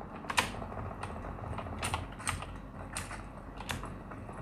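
Gaming keyboard keys being pressed during play: scattered, irregular clicks, about two a second.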